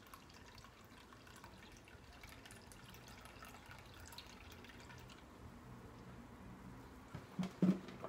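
Homemade grape vinegar trickling and dripping faintly from a tilted glass jar through a cotton cloth strainer into a bowl, as the fermented liquid is strained off the grapes. Near the end come two short knocks as the glass jar is set down on the counter.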